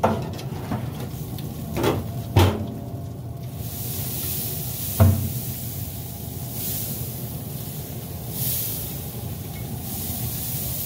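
Steady hiss and sizzle from racks of pork ribs on the open grate of a Weber SmokeFire EX6 pellet grill, with a few knocks as the racks are moved on the metal grate, the loudest about five seconds in.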